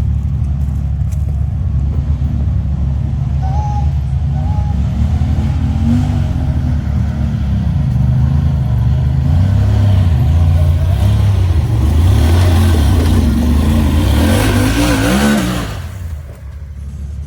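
Side-by-side UTV engine running on a trail, its pitch rising and falling with the throttle. It climbs in a longer rev through the latter half, then drops off sharply near the end.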